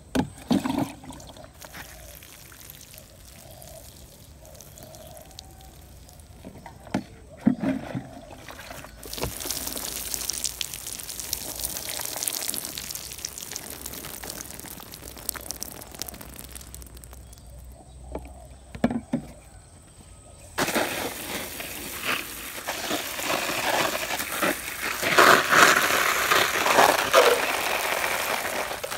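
Water sprinkled in a shower of drops onto garden plants and soil, splashing. It comes in two spells: one starting about nine seconds in, and a louder, denser one from about twenty seconds in as the water pours onto the wet soil of a potted eggplant seedling. A few soft knocks come between the spells.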